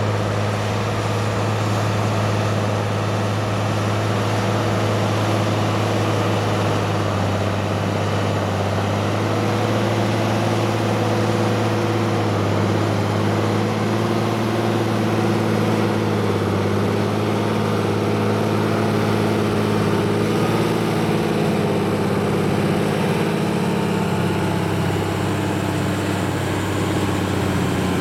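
Fendt tractor's diesel engine running steadily under load as it pulls a hydraulic earth scraper that cuts and loads soil.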